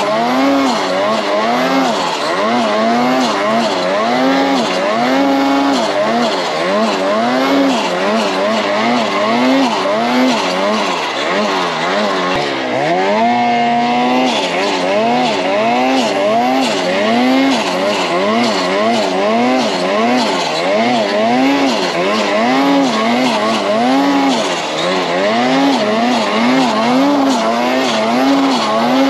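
Snowmobile engine revving up and down over and over, about once a second, as the throttle is worked through deep snow; about 13 seconds in it climbs steeply and holds high revs for a moment.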